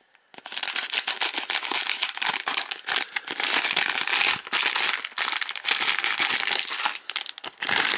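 A hockey-card surprise bag being torn open and its packaging handled, a dense, irregular crinkling with a short lull near the end.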